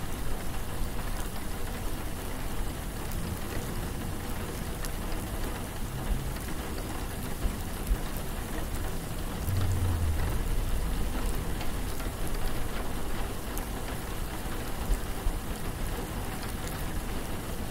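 Steady rain falling and pattering on hard surfaces, with faint drop ticks. A deep low rumble swells briefly about ten seconds in, and weaker ones come and go.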